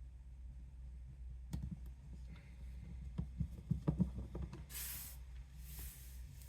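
Small clicks and taps of screws being turned in by hand, then three short rustling hisses, over a steady low hum.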